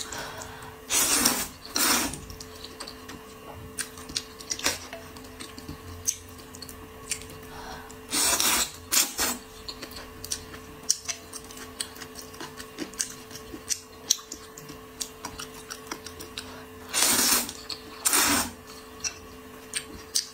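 Close-miked slurping of noodles in spicy broth, three pairs of loud slurps about eight seconds apart, with wet chewing and mouth clicks between them. A faint steady hum runs underneath.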